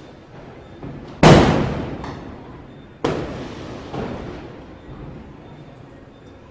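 Firecrackers going off: a loud bang about a second in and another about three seconds in, each dying away over a second or more, with a smaller bang about four seconds in and faint pops between.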